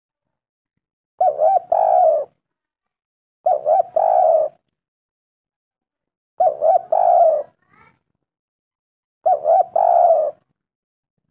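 Spotted dove (tekukur) cooing: four calls about three seconds apart, each a quick double note followed by a longer held coo.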